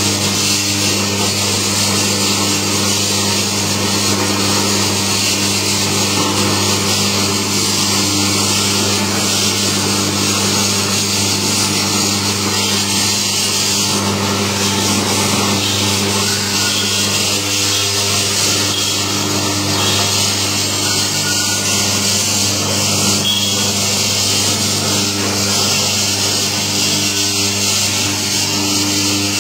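Electric coconut milk extractor running steadily: a constant low motor hum under an even, rushing mechanical noise, with no change in speed.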